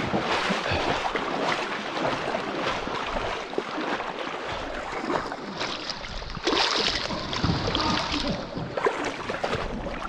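Water splashing and sloshing as someone moves through a canyon creek, over the rush of flowing water. The splashing grows louder and brighter about six and a half seconds in, for a couple of seconds.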